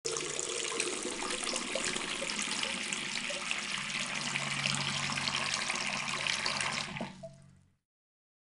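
Water running from a tap in a steady stream, starting abruptly and fading out about seven seconds in.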